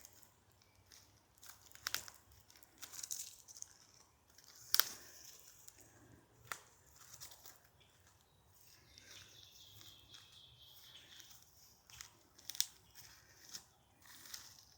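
Footsteps crunching through dry leaves and twigs: irregular crackles and snaps, with one sharper snap about five seconds in.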